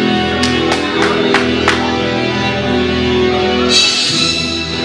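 Guitar-driven rock music, likely a team's entrance music, with a run of about five sharp hits between half a second and two seconds in and a hissy burst a little before the end.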